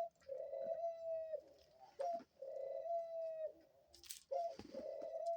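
Pet dove cooing: three long, even coos about two seconds apart, each led by a short clipped note. The last one runs on past the end.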